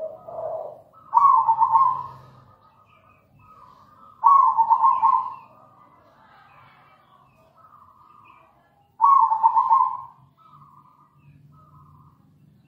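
Zebra dove (perkutut) singing its rapid, pulsing cooing phrase three times, about three to five seconds apart, with fainter coos between.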